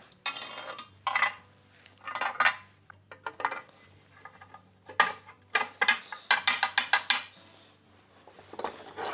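Steel parts of a power hammer's foot control clinking and clanking as they are handled and fitted: a run of irregular sharp metallic knocks and rattles, busiest in the middle of the stretch.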